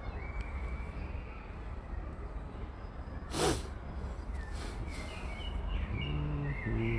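Outdoor ambience with faint bird chirps over a steady low rumble on the phone's microphone. About halfway through comes one short, loud breathy burst with a falling pitch.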